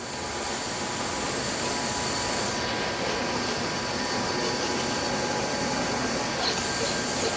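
Lathe running steadily, a continuous motor and spindle drone with a faint whine.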